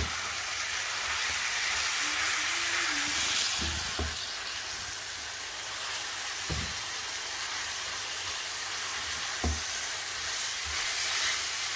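Minced meat sizzling in hot oil in a frying pan while a spatula breaks it up and stirs it, with a few knocks of the spatula against the pan.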